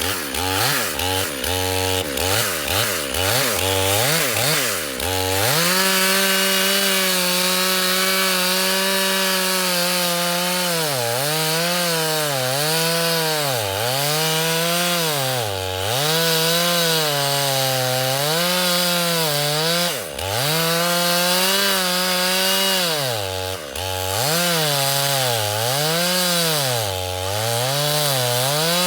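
Two-stroke petrol chainsaw: for about five seconds its engine revs up and down in quick blips, then it is held near full throttle, its pitch dipping and recovering every second or two as the chain bites into thick wood.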